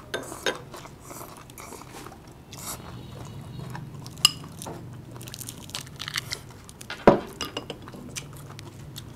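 Chewing and crunching of food close to the microphone, with scattered small crackles and clicks and two sharper knocks, about four and seven seconds in.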